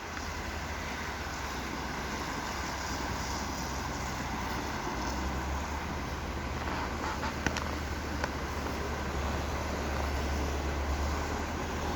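Dry, frozen snow creaking and squeaking under load in about −30° frost, over a steady low rumble that grows louder about five seconds in, with a couple of sharp clicks near the end.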